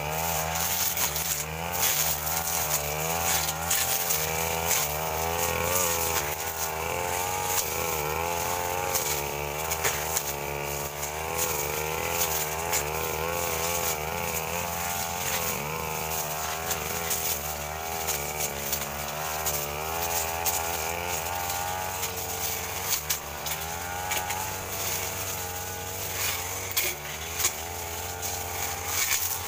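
Backpack brush cutter engine running hard while its blade cuts through ferns and brush, the engine note rising and dipping continually as it takes and sheds load. A few sharp knocks come near the end.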